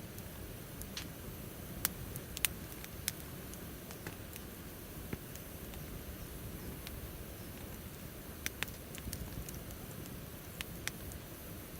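Wood fire crackling in a Picogrill fire pit: about ten sharp, irregular pops over a low steady rumble.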